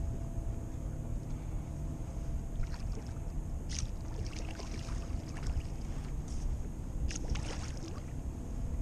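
Wind rumbling on the microphone aboard a kayak, with a few short splashy clicks about three seconds in and again about seven seconds in.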